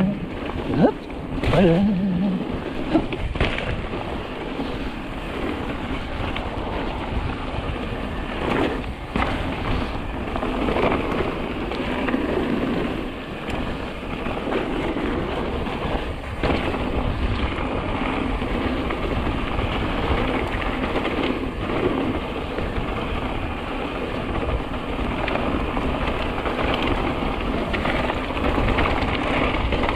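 Mountain bike ridden down a trail, heard from the rider's camera: a steady rush of wind and tyre noise, broken by sharp knocks and rattles as the bike goes over rough ground.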